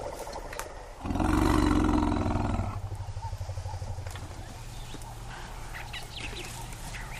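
African elephants calling: one loud bellow about a second in, lasting nearly two seconds, followed by a low steady rumble. It is the herd answering a separated, upset calf.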